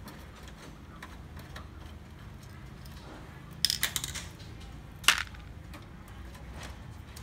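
Plastic side cover of an HP LaserJet M135a printer being pried off with a screwdriver: a quick run of sharp plastic clicks about halfway through as the latches let go, then one sharper click about a second later.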